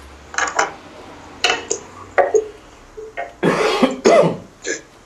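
A person coughing and clearing their throat in a string of short bursts, the longest a little past the middle.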